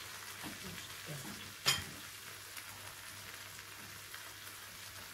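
Meat sizzling on an electric Korean barbecue grill plate, a steady hiss, with one sharp clink about a second and a half in.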